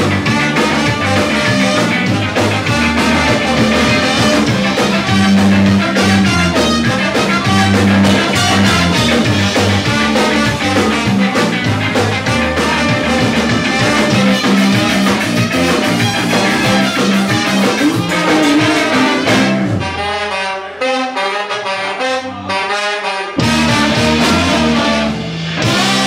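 Live ska band playing with a horn section of trumpet, saxophone and trombones over bass, guitar and drums. Near the end the bass and drums drop out for about three seconds, then the full band comes back in.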